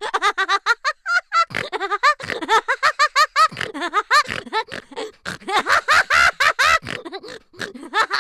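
Loud laughter: a fast, unbroken run of short ha-ha syllables, each rising and falling in pitch.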